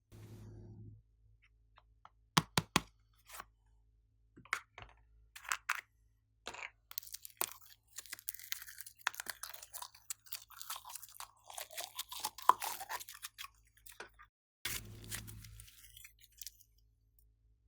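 Hands squishing, stretching and mixing glossy slime: irregular sticky clicks, pops and crackles, densest in the middle.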